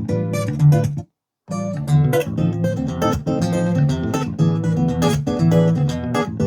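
Acoustic guitar music with quick plucked and strummed notes, played back through a portable Bluetooth speaker. The sound cuts out completely for about a third of a second, about a second in, then carries on.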